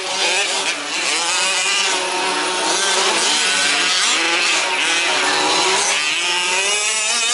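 Several 1/5-scale RC trucks' small two-stroke petrol engines racing together, their pitches rising and falling over one another as they rev up and back off.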